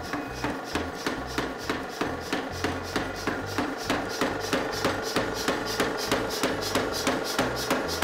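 Power hammer striking red-hot steel in a steady run of blows, about three a second, forge-welding pieces of an axe together. Background music plays underneath.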